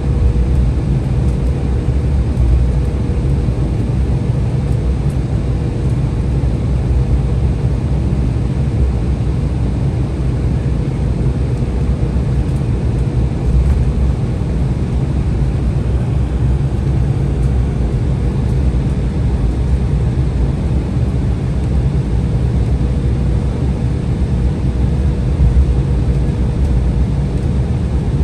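Steady low rumble inside the cabin of an Embraer 175 airliner, from its General Electric CF34 turbofan engines and the airflow, with a faint steady hum running through it.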